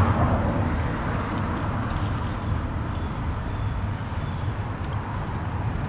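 Steady rumble of road traffic passing, with no distinct single events.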